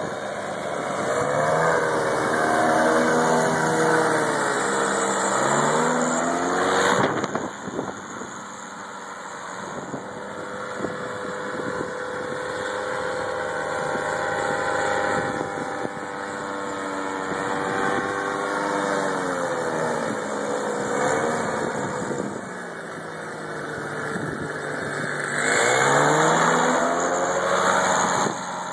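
Paramotor engines with caged propellers buzzing as powered paragliders fly low past. The pitch falls as each one goes by, in a close pass near the start and another near the end. There is a short loud rush about seven seconds in.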